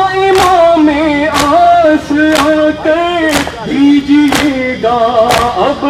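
A nauha lament sung in long held lines by male voices, with a crowd of mourners striking their bare chests in unison about once a second (matam), six sharp strokes in all.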